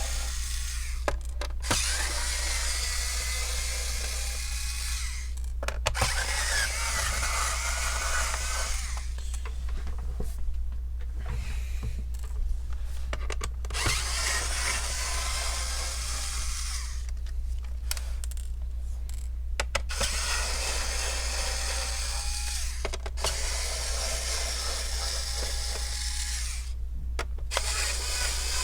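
Electric screwdriver whirring in bursts of a few seconds each, stopping and starting again as it backs out the Phillips screws from a laptop's bottom case.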